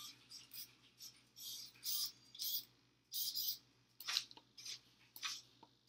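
Small hobby servo motors in an animatronic robot head whirring in short, irregular bursts as they move, with a few sharp clicks near the end.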